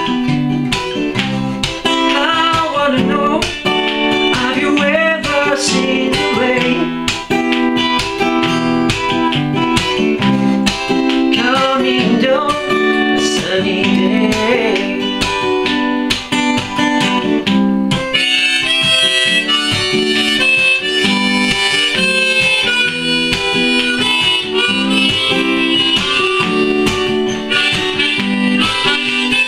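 Harmonica solo over a strummed Takamine cutaway acoustic guitar, an instrumental break with no singing. About two-thirds of the way through the harmonica moves up to higher, louder notes.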